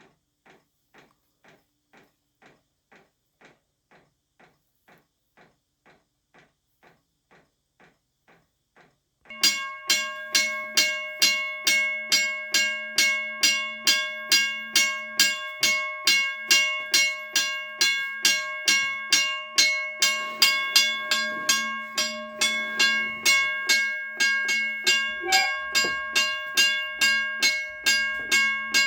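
WRRS mechanical railroad crossing bell running on a 9 V battery: even strokes about two to three a second, faint at first, then about nine seconds in the gong rings out loudly with every stroke. It rings a little slow and weak, as it does after being freed of rust and relubricated following decades out of service.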